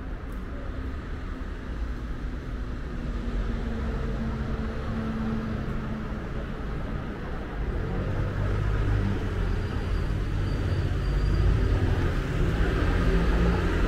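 Street traffic: a motor vehicle's engine running with a low rumble, growing gradually louder toward the end.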